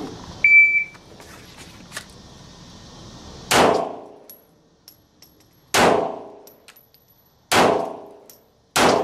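A shot timer beeps briefly about half a second in, then a pistol fires four single shots, spaced unevenly one to two seconds apart, as the shooter moves between called targets.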